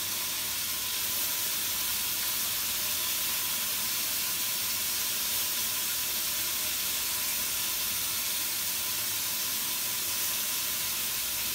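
Seasoned oxtail pieces browning in hot oil in a pot: a steady sizzle.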